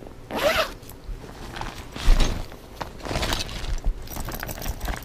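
Zipper on a small nylon pouch pulled open, then rustling and clunks as a plastic zip bag of small gear is tipped out onto a blanket, with a soft thump about two seconds in.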